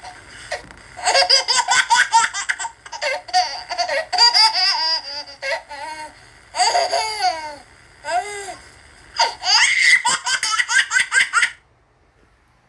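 A woman laughing hard in several high-pitched fits, with short pauses between them. The laughter stops shortly before the end.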